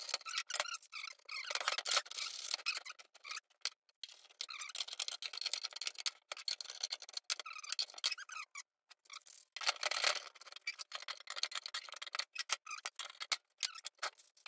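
Clamps being tightened down on a glued-up wooden panel: a long run of quick, irregular clicks and ticks with a few short pauses.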